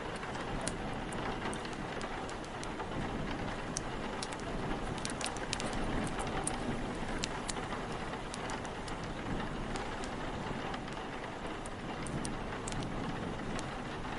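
Steady rain with a low wind rumble, overlaid with the scattered sharp pops and crackles of a wood fire, several each second.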